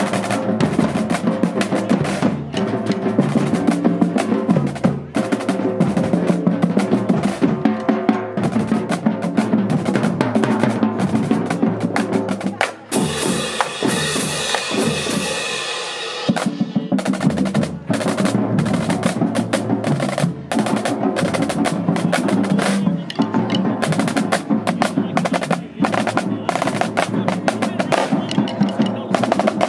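Marching band drumline playing a fast cadence on snare and bass drums, with dense, rapid strokes. About halfway through, the strokes thin out for a few seconds under a sustained ringing sound, then the cadence resumes.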